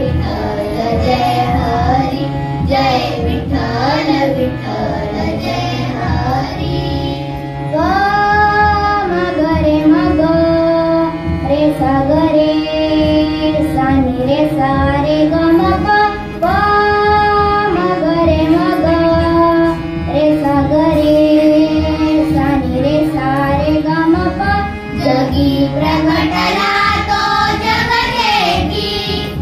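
A group of young girls singing a Marathi Vitthal bhajan together, accompanied by a harmonium's sustained reed drone, with rhythmic hand-clapping.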